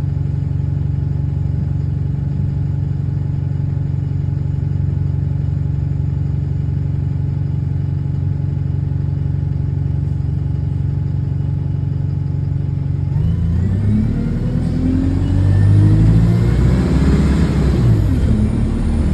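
Bus diesel engine with an exhaust leak, heard from on board, idling steadily. About 13 seconds in it revs up as the bus pulls away, its pitch rising and dropping again as the gearbox changes up.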